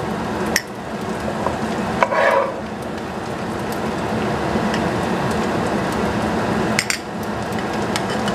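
A metal spoon clinking and scraping against a glass jar and frying pan as caramelized red onions are spooned into the jar, with a few sharp clinks about half a second in, a short scrape about two seconds in, and more clinks near seven seconds, over a steady hiss.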